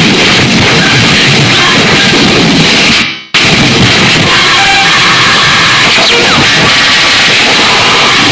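Harsh digital noise music: a loud, dense wall of distorted electronic noise, chopped off abruptly for a split second about three seconds in before slamming straight back, in a cut-up style.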